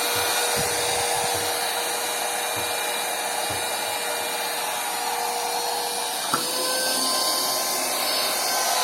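70mai portable cordless car vacuum cleaner running steadily: a rush of air with a steady motor whine. A click about six and a half seconds in, after which the whine sits slightly higher.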